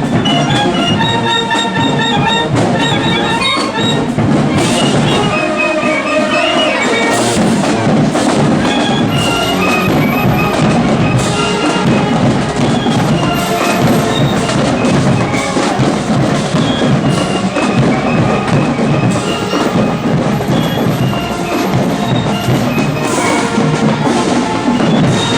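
Marching band playing: a drumline with bass drums keeping a steady beat under brass horn lines.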